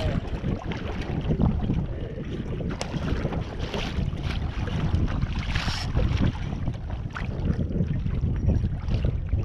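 Wind buffeting the microphone over water lapping and slapping against a kayak hull, with scattered short splashes.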